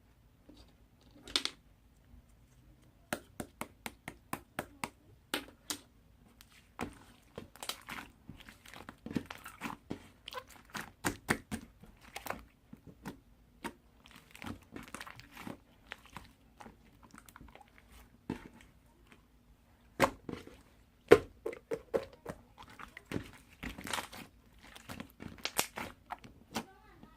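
Irregular small clicks, taps and crinkling of objects being handled close by, busier from about three seconds in, with a cluster of louder knocks near the end.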